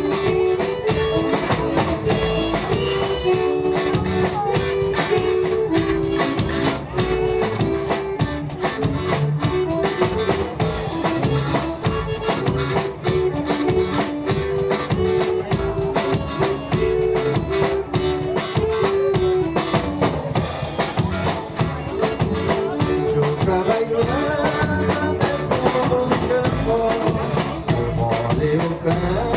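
Gaúcho vanera dance music played by a band: an accordion melody over guitar and drums, with a steady beat. This is an instrumental introduction.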